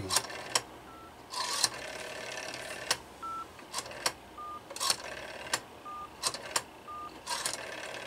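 Telephone line sounds heard through the earpiece of a rotary-dial handset: scattered sharp clicks and about five short beeps from a pulse-to-tone dial converter, which gives a tone for every dialed digit, with a few stretches of hiss.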